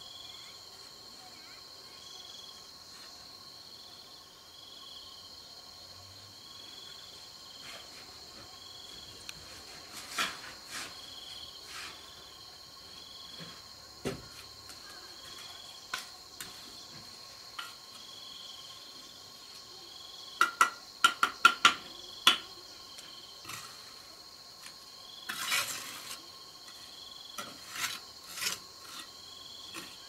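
Steady insect chorus with a short chirp repeating about once a second, overlaid by scattered sharp taps and knocks, including a quick run of about six about two-thirds of the way through.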